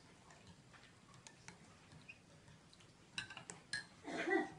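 Metal spoons clinking lightly against glass tea cups, with a few sharper clinks a little past three seconds in. A brief voice comes near the end.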